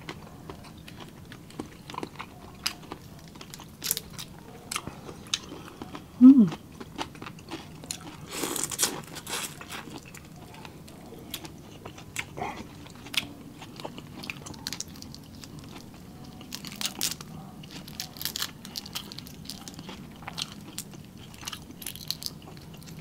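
Close-up eating sounds: crunching, chewing and sharp crackles of cooked prawn shells being peeled and bitten. A short hum of voice, falling in pitch, comes about six seconds in and is the loudest sound.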